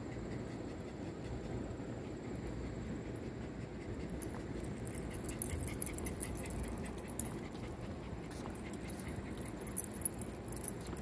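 Two small leashed dogs walking on a wooden boardwalk: light irregular ticking and jingling from their nails, tags and leash clips, growing busier about four seconds in, over a steady low background noise.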